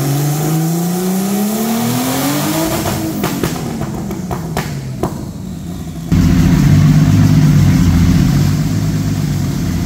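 Turbocharged BMW M50 straight-six stroker engine on a chassis dyno, climbing steadily in revs under full load for about three seconds during a power pull, then popping and crackling as the revs fall. About six seconds in, a loud, steady, lumpy engine rumble starts suddenly.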